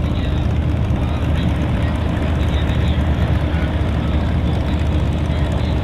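Boeing Stearman biplane's radial engine running at taxi power as it taxis, a steady low rumble with a constant drone.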